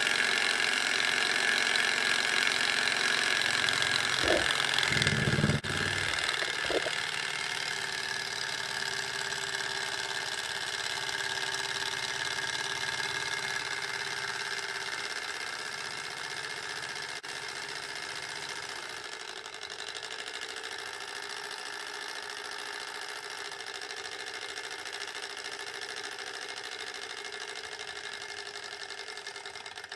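Small hot-air Stirling engine running and turning a LEGO gearbox through a rod and cardan axles: a steady mechanical running noise from the engine and the plastic gears. A few low thumps come about four to seven seconds in, and after them the running sound gets a little quieter.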